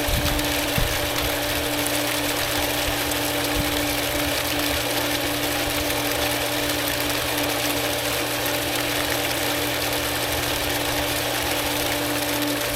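Goulds 1/2 HP electric jet pump running steadily with a constant hum, freshly primed and drawing lake water, with a little air still in the intake line.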